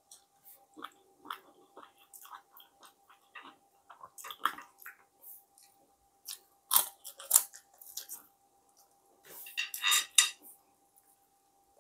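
Close-miked chewing and lip-smacking of fried tilapia eaten by hand, a run of short wet mouth clicks and crackles. There are louder crunchy bursts about seven seconds in and again near the end.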